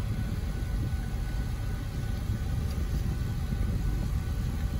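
Steady low rumble of a Union Pacific empty coal train rolling through a grade crossing, heard from inside a car waiting at the crossing.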